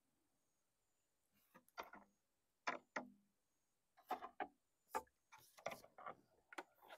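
Faint, scattered short taps and knocks from poling a bamboo raft: the bamboo pole working against the raft and the water. A few taps come early, then a busier run from about four seconds in.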